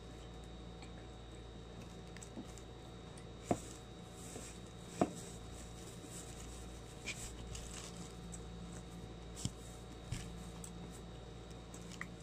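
Quiet eating sounds: a person chewing and picking up food by hand, with a few short, sharp mouth smacks or clicks scattered through, two of them louder a few seconds in, over a faint steady hum.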